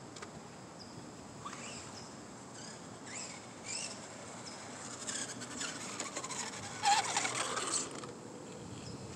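Radio-controlled cars driving on asphalt, their motors giving faint high-pitched whines that rise and fall. The sound grows louder between about five and eight seconds, with a falling whine as one truck slows and pulls up close.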